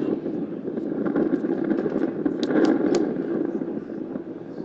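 Loudspeaker sound from a laser-beam photodetector as baby powder drifts through the beam, the dust particles flickering the light: a dense, irregular noise with three sharp clicks a little past the middle.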